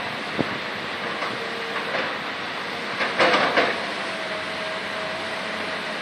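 Heavy diesel construction trucks, a concrete mixer truck and a dump truck, running steadily. Sharp knocks come through now and then, with a louder clattering cluster a little after three seconds in, and a thin steady whine from about four seconds in.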